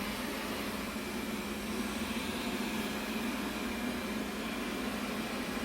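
Robot vacuum cleaner running with a steady, even hum.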